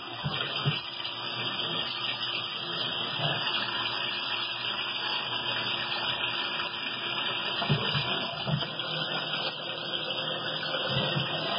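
Tsugami BS-12BIII CNC Swiss-type lathe machining bar stock under a flood of cutting oil: a steady whir and hiss of the running spindle and oil spray, with a few short low knocks.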